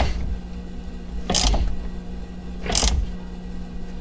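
Hand ratchet being worked in three short clicking strokes about a second and a half apart, over a steady low hum.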